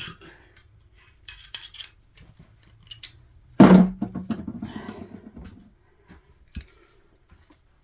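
Metal tools and parts clinking during work on a potter's wheel. A little over three seconds in comes one loud metal clang that rings on with a low tone for about two seconds, followed by lighter rattling.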